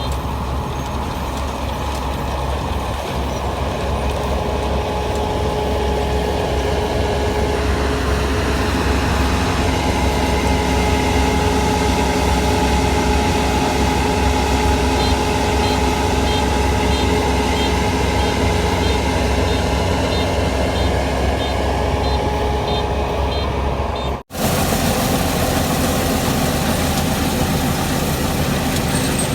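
Heavy farm machine engine running steadily under load, with a steady mechanical whine over it. Faint regular high beeping runs through the middle, and the sound drops out for an instant near the end.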